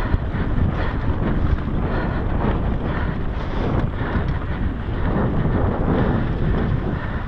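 Wind buffeting a GoPro's microphone while a mountain bike rides fast over dirt singletrack, with tyre noise and the bike rattling over bumps.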